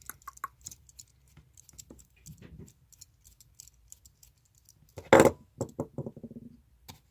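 Small metal clicks from a screwdriver working the contact-post screw on a coil tattoo machine. About five seconds in there is a loud sharp metallic clack, followed by a quick rattle of fading knocks, as of a small metal part set down or dropped onto a hard surface.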